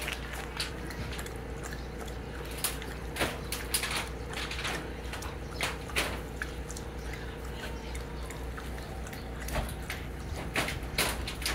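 Dogs lapping water from a stainless steel bowl: irregular wet laps and clicks of tongues against the water and the metal, a few to the second.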